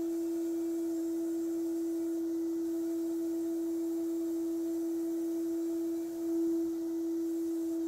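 Sandblasting gun running steadily in a blast cabinet: one steady whistling tone over a faint high hiss, dipping briefly and swelling again about six seconds in.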